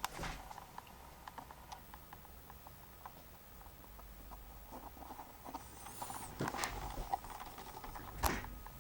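Faint scattered clicks and light rustling, with a few sharper knocks just after the start, past six seconds and near the end.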